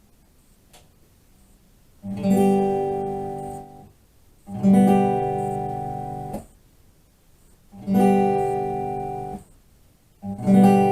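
Guitar strummed, the same chord struck four times about two and a half seconds apart, each ringing about a second and a half before it is damped, with quiet gaps between strums.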